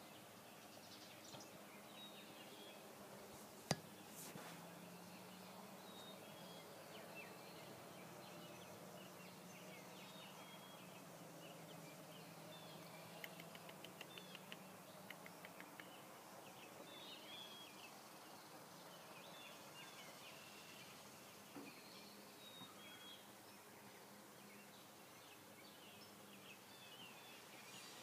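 Faint garden ambience: scattered small bird chirps and calls over a low steady hum. There is one sharp click about four seconds in, and a quick run of ticks a little past the middle.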